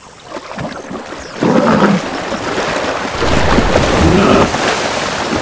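A hippo charging through shallow water, with heavy splashing that starts suddenly about a second and a half in and is loudest near the middle. Deep animal growls come with the charge.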